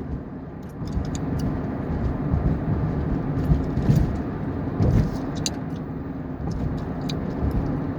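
Gum chewing close to the microphone: irregular wet smacks and clicks, in clusters, over the steady low rumble of a car cabin while driving.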